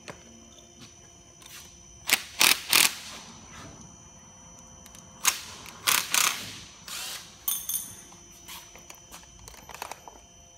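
Hand tools and metal fittings being handled, giving sharp clicks and clatters in several short clusters: a few strokes about two seconds in, more around five to six seconds, and a lighter rattle around seven seconds.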